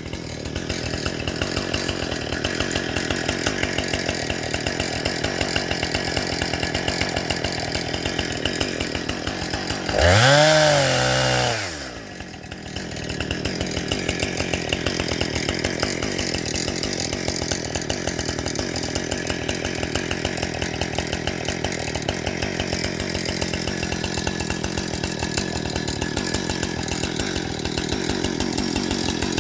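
A small engine runs steadily at low speed. About ten seconds in, it revs up hard once for a second or so and drops back.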